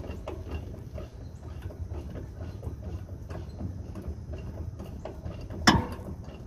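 Hand ratchet clicking as it is worked back and forth on the lower mounting nut of a semi truck's front shock absorber, over a steady low rumble. Near the end a single loud metal clank stands out.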